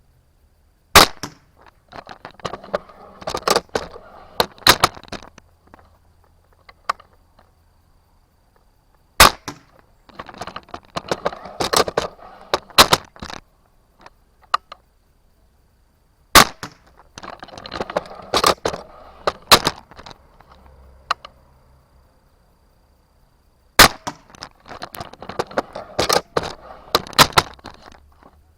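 Cobra Adder repeating pistol crossbow firing four times, each shot a sharp snap of the string, followed each time by a few seconds of clacking as the crossbow is recocked and the next bolt is loaded from the magazine. Heard up close from a camera mounted on the crossbow.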